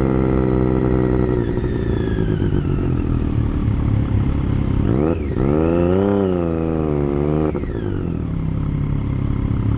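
Motorcycle engines running at low speed: a steady engine note drops in pitch about a second in, then from about five seconds a close engine note rises and falls for two or three seconds before cutting back.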